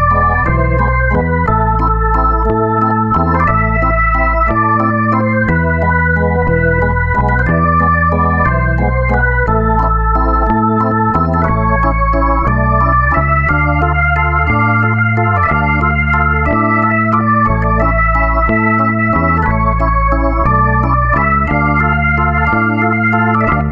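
Background instrumental keyboard music, organ-like, with held chords over a bass line that steps every second or so.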